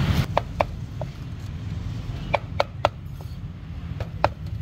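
Steel cleaver chopping grilled pork on a thick round wooden chopping board: about seven sharp knocks, each with a short metallic ring, coming in small irregular groups.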